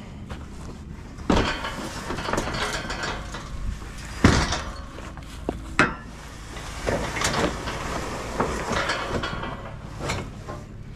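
Steel-pipe cattle feed bunk being gripped and shifted by hand over grass: scraping and rattling of the metal frame, with several sharp knocks, the loudest about four seconds in.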